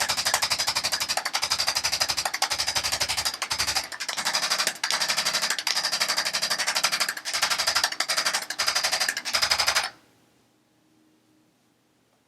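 Handheld electric percussion device hammering rapidly on a patient's back in several runs with short breaks, with a steady high motor whine; it cuts off suddenly near the end.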